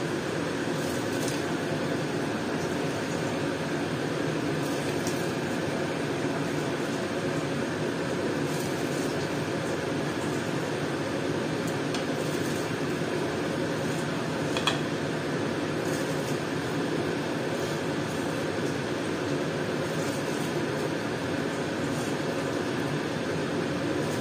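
Steady rushing noise of a large aluminium pot of water at a full boil on a gas burner as rice is dropped in, with a single brief click about 15 seconds in.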